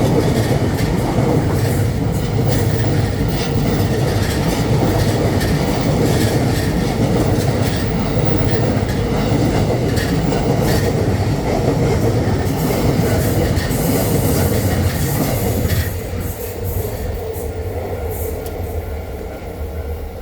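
JR East Joban Line electric commuter train running past, its wheels clacking over the rail joints. The noise drops about sixteen seconds in and then fades as the train moves away.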